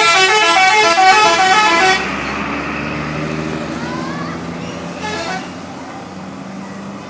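Telolet musical horn on an Aneka Jaya bus playing its quick multi-note tune, which stops about two seconds in. The bus engine runs on underneath, and the horn gives a short second burst about five seconds in.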